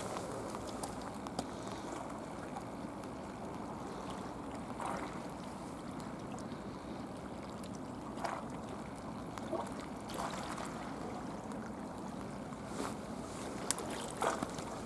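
Steady wash of sea water and wind at the water's edge, with a few short splashy sounds. Near the end, a small splash as an inflated puffer fish is dropped back into the sea.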